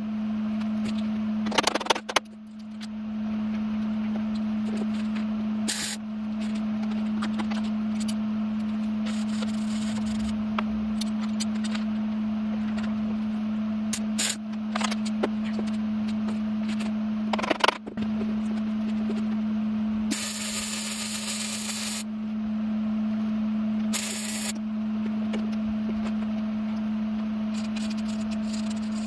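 Arc welding on a steel truck frame: a steady crackling sizzle from the arc with a constant hum under it, stopping briefly about two seconds in and again near eighteen seconds as the bead is broken and restarted.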